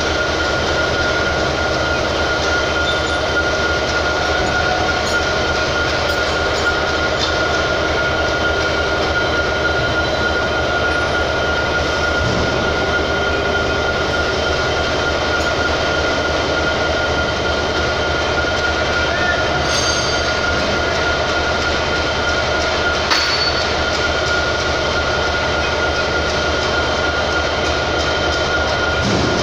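Steady industrial machinery drone in a locomotive repair shed, loud and even, with a constant high-pitched whine over it. A single faint metallic clink sounds about three-quarters of the way through.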